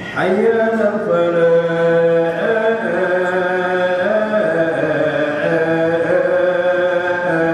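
A man's voice chanting in Arabic, holding long melodic notes that step up and down in pitch. It comes in suddenly at the start with a rising slide.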